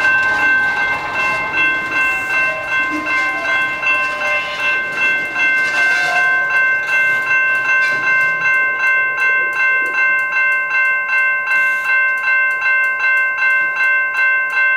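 Railroad grade-crossing bell ringing steadily at about two strokes a second. Under it, the rumble of a freight train's boxcars rolling slowly over the crossing dies away about halfway through as the train comes to a stop.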